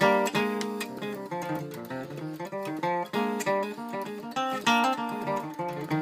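1965 Gibson Country Western steel-string acoustic guitar, capoed, playing a brisk tune of picked single notes mixed with strummed chords.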